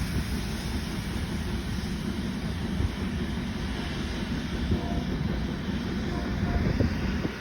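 Train passing close by: a steady low rumble of the cars rolling over the rails, with a few faint knocks.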